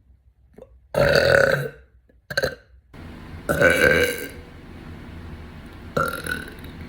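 A woman burping deeply four times: a long burp about a second in, a short one soon after, another long one near the middle, and a shorter one near the end.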